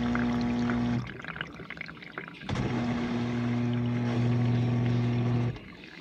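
GE dishwasher's wash pump running with a steady hum and water splashing in the tub. It cuts out about a second in, starts again about a second and a half later, and cuts out once more near the end.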